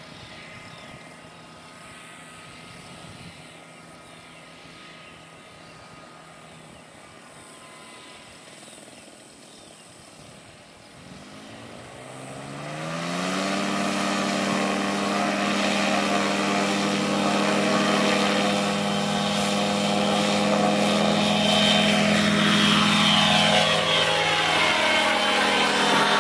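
Paramotor engine and propeller idling quietly, then throttled up about eleven seconds in. The pitch rises over a couple of seconds to a loud, steady full-power drone for the takeoff run and climb. The pitch shifts a few seconds before the end as it passes overhead.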